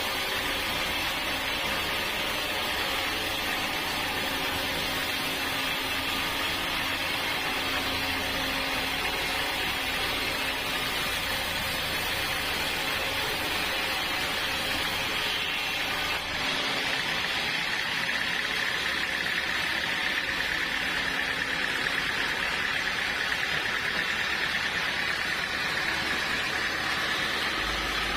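Sawmill running steadily while sawing dense, fibrous acacia wood. The sound dips briefly about sixteen seconds in, and a steady high whine sets in soon after.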